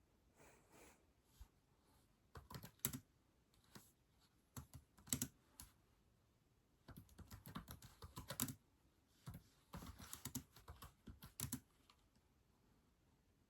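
Typing on a keyboard: sharp keystroke clicks in short, irregular bursts with pauses between, including a quicker run of keys about seven to eight seconds in.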